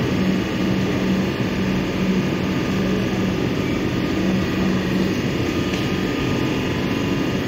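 Steady drone of a Melbourne Metro electric suburban train standing at the platform with its doors open, its onboard equipment running. Under it, a low hum comes and goes about once a second.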